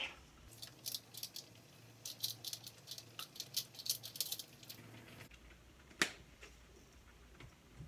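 A pink salt grinder being twisted over a pot, giving a run of quick, irregular gritty clicks for about five seconds. A single sharp click follows about six seconds in.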